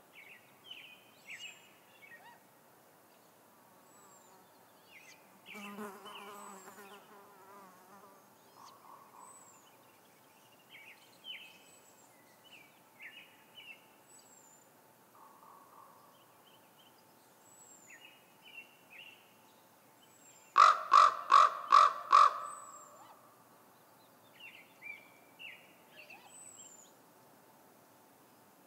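A crow giving five harsh caws in quick succession about two-thirds of the way through, the loudest sound, over small songbirds' repeated high chirps and thin falling whistles. About six seconds in, a longer wavering call is heard.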